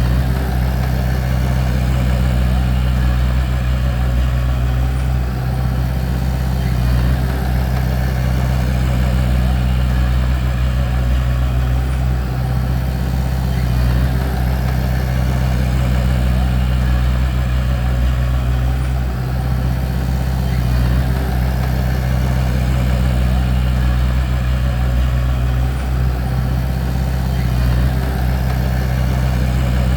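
Bulldozer's diesel engine running steadily with a deep, even drone, no marked revving or pauses.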